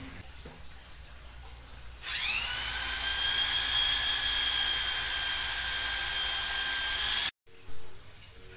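Cordless drill spinning up with a rising whine and then running steadily at full speed, working on the wooden bed leg. It cuts off suddenly and is followed by a short burst of noise.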